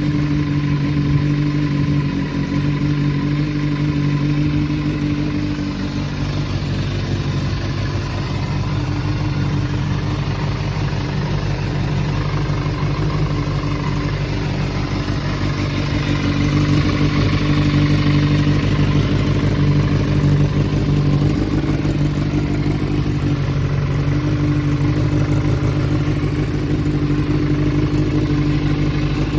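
Kawasaki ZRX400 inline-four motorcycle engine idling steadily, which the seller presents as free of abnormal engine noise.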